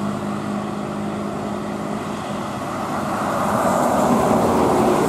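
Mercedes-Benz coach bus driving past close by: its engine and tyre noise build and grow louder over the last couple of seconds as it reaches the camera.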